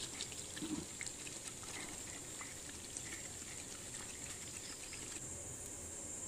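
Chicken roast in a thick milk gravy simmering gently in a metal pot, with faint scattered bubbling pops. It stops about five seconds in, leaving only faint hiss.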